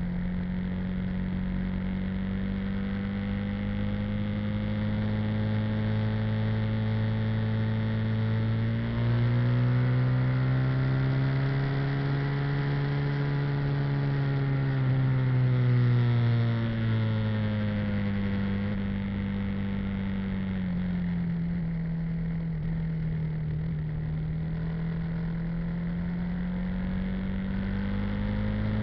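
Motorbike engine running under way, its note steady at first, then rising and getting louder about a third of the way in, falling again past the middle, stepping down once and climbing again near the end.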